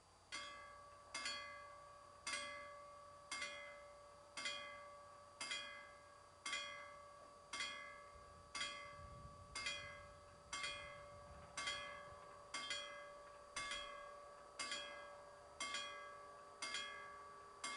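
Level crossing warning bell ringing in regular strikes, about one a second, each strike ringing on and fading, starting a moment in: the crossing has been activated and is closing for an approaching train.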